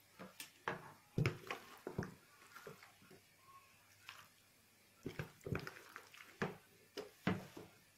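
Metal spoon clinking and scraping on a metal baking tray as cooked macaroni is spooned and spread over a layer of minced meat, in short irregular knocks that come in small clusters.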